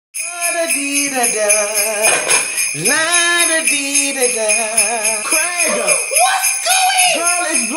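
Sleigh bells jingling steadily under a melody of held, wavering notes, like a Christmas tune. It starts abruptly out of silence.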